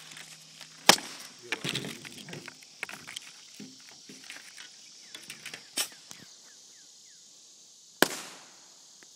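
Firecrackers going off nearby: sharp single bangs, the loudest about a second in and another near the end with a short echoing tail, among smaller pops and clicks. From about six seconds in, insects chirp steadily in the background.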